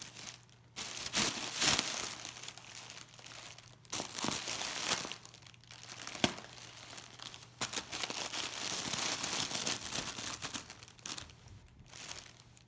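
Inflated plastic air-pillow packing bags crinkling in irregular bursts as a tabby cat paws and bites at them, with short pauses between bursts.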